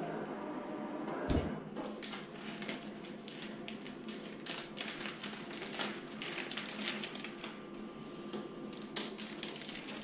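A Graphtec cutting plotter's motor whirs steadily for about a second and stops with a knock. Then thin window tint film rustles and crinkles in short crackly bursts as it is handled and pulled at the cutter.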